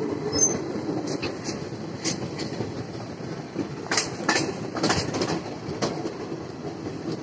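Passenger train coach running along the track, heard from its open doorway: a steady rumble of the wheels on the rails, with irregular sharp clicks and knocks as the wheels cross rail joints.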